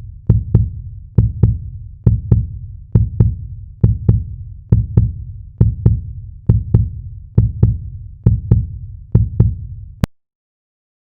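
Heartbeat sound effect: pairs of deep thumps, a little under one pair a second, that stop abruptly about ten seconds in.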